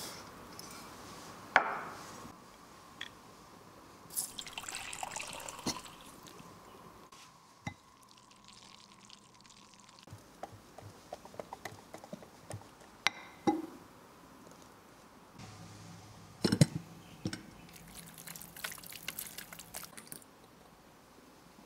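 Sugar poured into flour in a glass measuring jug, then a spoon stirring the mix, with scattered ticks and several sharp clinks against the glass. Near the end, liquid batter pours and drips through a wire mesh sieve into a glass bowl.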